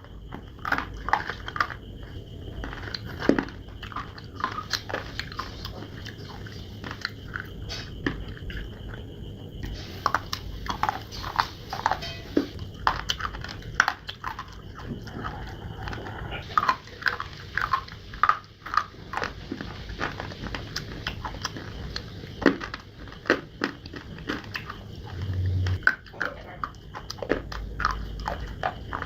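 Close-up biting and chewing of hard, earthy chunks of clay and slate: a dense, irregular run of sharp crunches and cracks.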